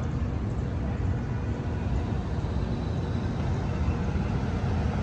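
Steady low rumble of street vehicles, with no distinct events standing out.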